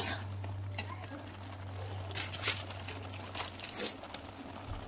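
Spice paste frying in a pan, with faint crackles and a few light scrapes and clicks of a spoon against the pan, opening with one sharp knock, over a steady low hum.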